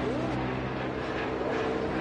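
Animated race car engines running at the starting line, several steady engine tones at once with short upward revs.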